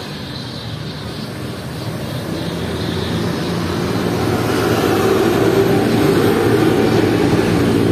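A bus approaching on the road, its engine and tyre noise growing steadily louder and loudest over the last three seconds.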